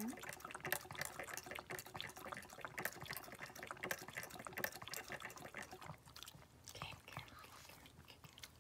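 Shih tzu licking the metal drinking nozzle of a gravity-fed water bottle, making a quick run of wet ticks as water is released. The ticks thin out about six seconds in as the dog stops drinking.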